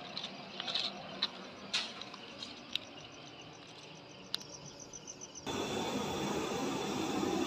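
Crickets chirping in a fast, even trill, with a few sharp handling clicks. About five and a half seconds in, the sound cuts to a louder, steady background noise.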